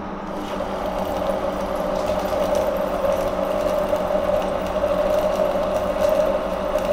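Monarch engine lathe taking a heavy dry roughing cut in a steel bar with an LNMX carbide insert: a 0.225-inch-deep cut at 0.020-inch feed, run without coolant. The steady machine hum swells into a strong, even cutting tone about half a second in and holds steady.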